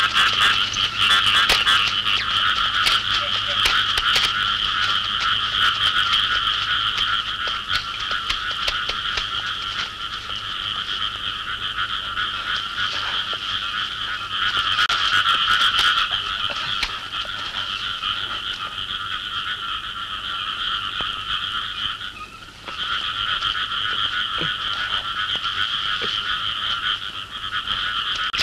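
Dense chorus of frogs croaking, a steady fast pulsing trill that drops out for a moment about 22 seconds in, over a faint low hum.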